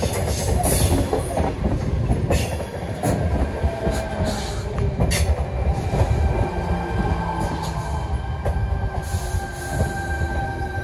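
Double-deck electric suburban train running past close by: a dense rumble of wheels on rail with scattered sharp clicks, and a thin steady high-pitched tone over it.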